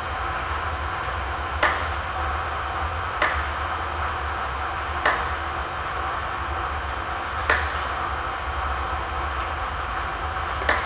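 Cutters snipping off the protruding ends of plastic-repair staples: five sharp metallic clicks, each with a brief ring, spaced one to two and a half seconds apart, over a steady background hiss.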